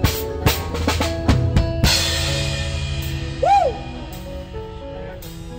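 Live band's drum kit playing a fast fill of snare and bass-drum hits, then a cymbal crash about two seconds in over a held chord that rings out and fades, like the close of a song. A brief high note rises and falls near the middle.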